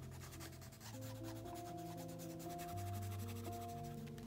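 Soft background music of slow, sustained notes, with faint rubbing of a colouring stick being blended onto paper.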